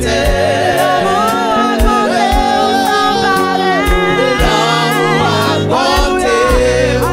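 Haitian Creole gospel worship song: singing over bass and a steady drum beat of about two hits a second.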